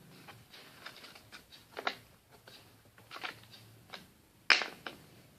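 Homemade slime being kneaded and pressed in the hands, making irregular sticky clicks and pops, the loudest a sharp snap about four and a half seconds in.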